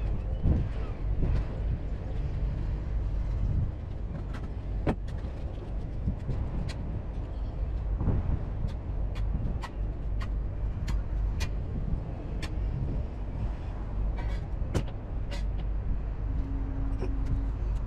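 HGV lorry's diesel engine running at low speed with a steady low rumble, with scattered sharp clicks and rattles.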